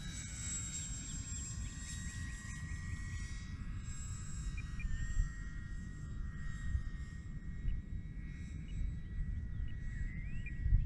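Brushless electric motor and propeller of an E-Flite Air Tractor 1.5 m RC plane whining as it flies past and away. The pitch falls slowly over the first few seconds and then fades to a faint distant whine, over a steady low rumble.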